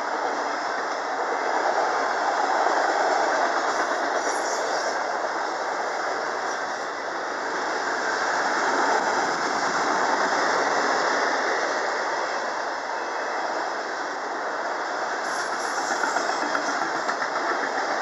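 Freight cars of a vehicle train (autoracks) rolling past at speed: a steady rush of wheels on rail that swells and eases every few seconds. Brief high-pitched wheel squeal comes twice, about four seconds in and again near the end.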